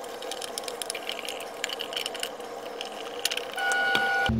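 Fast-forwarded sound of screws being driven into a remote controller's plastic case with a screwdriver: a quick jumble of small clicks and rattles. A short steady tone comes near the end.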